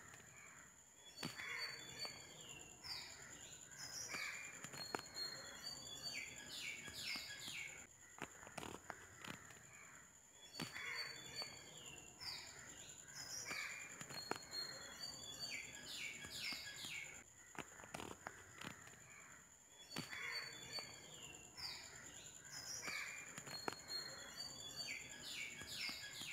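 Faint birdsong with crows cawing, over a steady high-pitched whine. The same run of calls repeats about every nine to ten seconds, as a looped background recording does.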